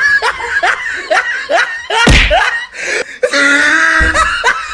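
Edited-in comic sound effects with laughter: a run of short upward-swooping sounds about every half second, a heavy thump about two seconds in and another near the end.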